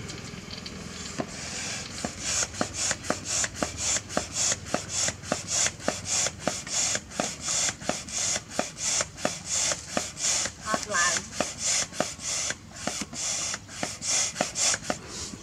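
Hand-operated stand pump inflating a plastic paddling pool: a steady rhythm of hissing puffs of air through the hose, about two a second, beginning a couple of seconds in.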